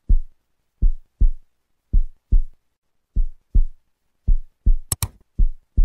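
Slow heartbeat sound effect: paired deep thumps repeating about once a second. Two sharp clicks come in quick succession near the end.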